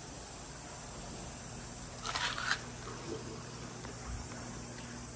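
Quiet outdoor background hiss, with one short rustling noise about two seconds in.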